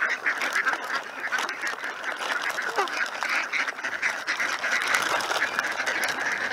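A crowd of ducks and geese calling all at once: a dense, unbroken chatter of quacking and honking from many birds.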